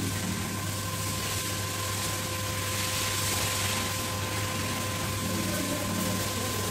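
Steady hum of a car-wash pressure-washer pump running, with the hiss of water spray over it and a faint steady whine.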